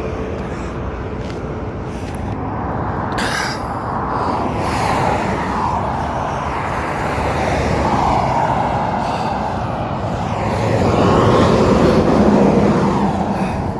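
Steady highway road and traffic noise from vehicles, swelling for a few seconds near the end.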